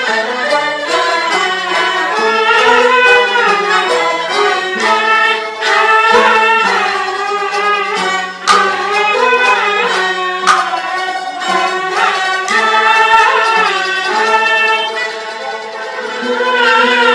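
Peking opera music: a jinghu fiddle plays a wavering, ornamented melody, punctuated by a few sharp percussion clicks.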